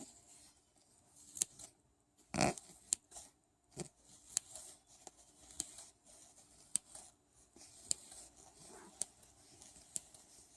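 Scissors snipping fresh catnip into small pieces: a string of short, sharp snips at irregular intervals, about one a second.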